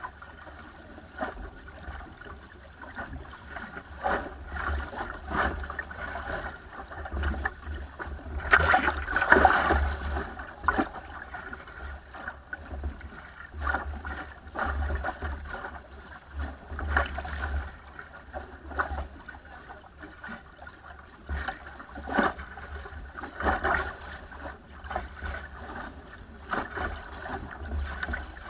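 Water splashing and slapping against the hull of a small wooden sailing dinghy under way, heard close from the bow, in irregular surges, the loudest about nine seconds in. A low wind rumble on the microphone runs beneath.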